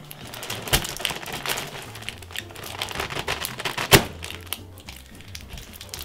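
Plastic Petaminx puzzle pieces clicking and rattling as the opened puzzle is pushed back together, with two sharp snaps, about a second in and about four seconds in. Background music plays underneath.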